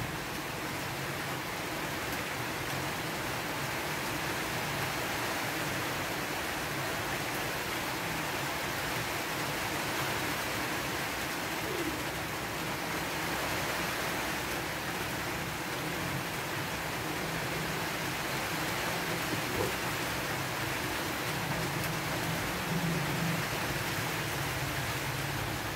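Steady, even rushing noise.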